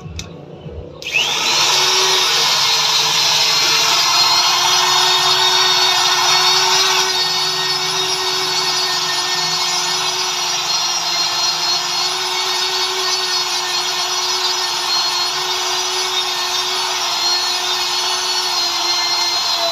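A high-speed power tool starts up about a second in and runs steadily without a break, with a hissing noise over a constant whine.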